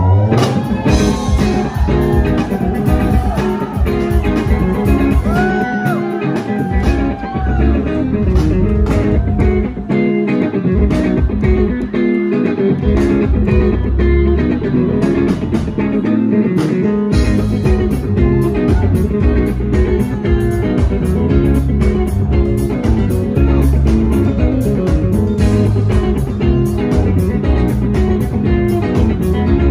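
Live rock band playing at full volume: electric guitar, bass guitar and drum kit on a steady beat, with a lead line whose notes bend up and down in pitch during the first ten seconds or so.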